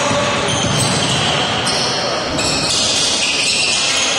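Basketball game sounds in a sports hall: a ball bouncing on the court amid a steady din of players' and spectators' voices.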